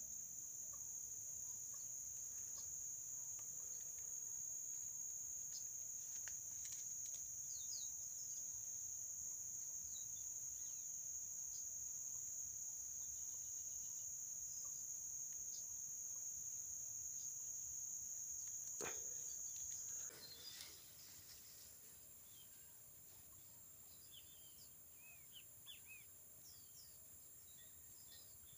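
Steady high-pitched drone of insects, with scattered short bird chirps over it. About two-thirds of the way through there is a single sharp click, and the drone drops to a fainter, higher one.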